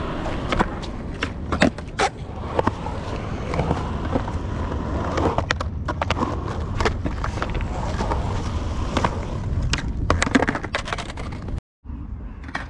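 Skateboard wheels rolling on a concrete bowl: a steady rumble broken by many sharp clacks from the board and trucks. The sound cuts out briefly near the end and comes back quieter.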